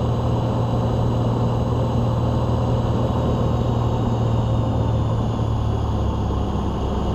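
Van's RV-7 light aircraft's piston engine and propeller droning steadily in flight.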